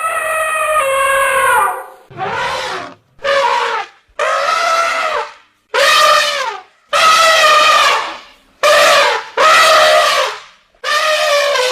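Elephant trumpeting: a rapid series of about eight loud, brassy trumpet calls, each under a second or so long, with short gaps between them.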